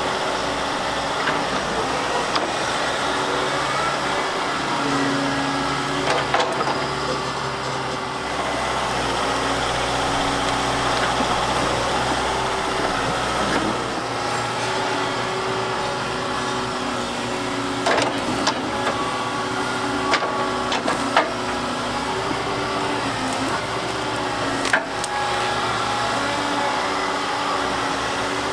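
Volvo excavator's diesel engine running steadily under working load, its note shifting now and then. About half a dozen sharp knocks of rock or metal are struck over it, the loudest near the end.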